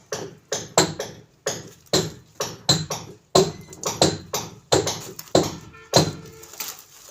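Repeated hammer blows on metal, about two a second, each with a short metallic ring.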